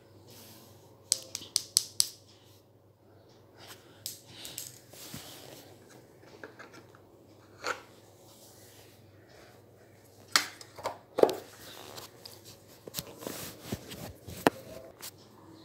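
Handling noise of small objects: a run of sharp clicks and taps, with a quick cluster of about five about a second in and more scattered ones later.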